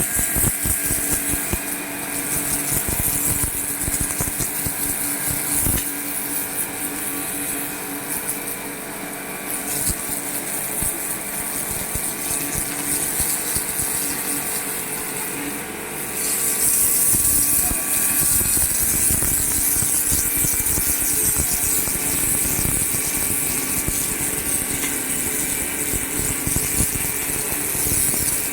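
KisanKraft KK-PWIH 2200 electric high-pressure washer running: the steady hum of its 2.2 kW motor and pump together with the hiss of the water jet, which gets louder about halfway through.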